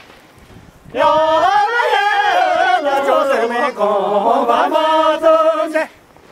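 Singers voicing one long, wavering phrase of a Tibetan Ngari traditional circle-dance song, without instruments. It starts about a second in and breaks off shortly before the end.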